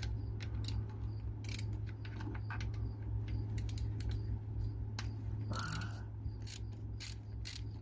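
Hand wrench working a bolt loose on a truck's transmission: a run of irregular short metallic clicks and clinks.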